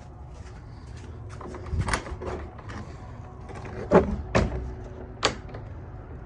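Shuffling steps and a run of knocks and bangs, the loudest about four seconds in, as a pigeon loft door is opened and shut.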